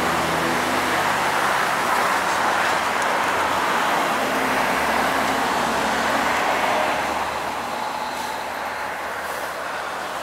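Anadolu Isuzu Citiport 12 city bus pulling in to a stop, its engine and tyres making a steady, loud noise. The sound eases off about seven seconds in as the bus slows beside the kerb.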